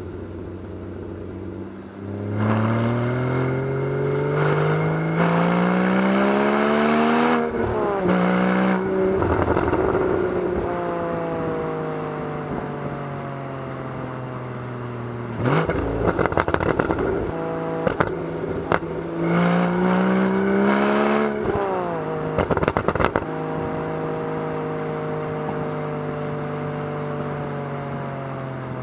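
Porsche 981 Boxster's flat-six engine pulling in gear, its pitch rising as it accelerates and dropping suddenly at a gearshift. Later the pitch falls steadily as the car eases off, then rises briefly once more. Bursts of rapid clicking come in around the middle.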